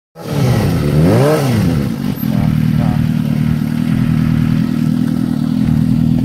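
Suzuki GSX-R600 sportbike's inline-four engine running: one quick rev about a second in that rises and drops back, then a steady idle.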